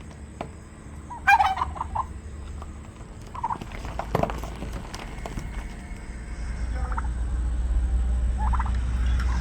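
A turkey gobbling: one loud, rapid warbling gobble about a second in, with fainter calls later. A low rumble grows louder through the second half.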